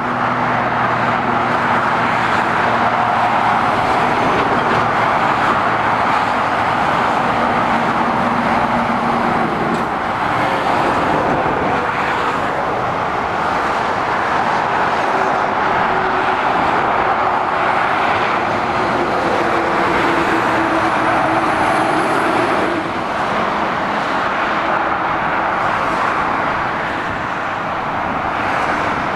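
Steady road traffic: continuous tyre noise from cars, vans and lorries on a dual carriageway, with the low hum of lorry diesel engines coming and going as they pass.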